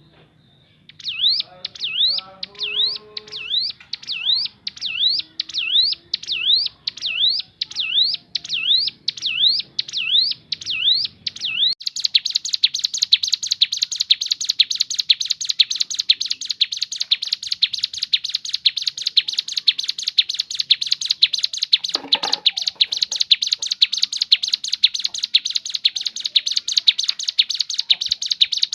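Ciblek gunung (a prinia) singing: a run of sweeping whistled notes repeated about twice a second, then from about a third of the way in a long, very fast unbroken trill.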